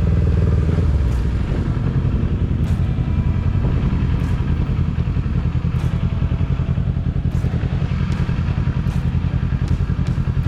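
Kawasaki Ninja 400 parallel-twin motorcycle engine running at steady low revs, slightly louder for the first second.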